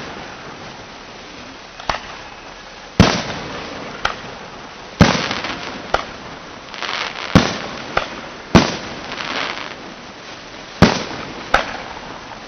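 Aerial firework shells bursting in a display: about ten sharp bangs at irregular intervals of roughly half a second to two seconds, each trailing off in an echo, with short stretches of crackling between them.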